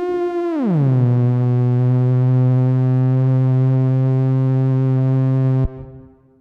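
AliExpress theremin playing one of its built-in electronic voices: a pitched tone glides down over about a second, then holds a steady low note with many overtones. It cuts off near the end, leaving a short reverb tail that fades away.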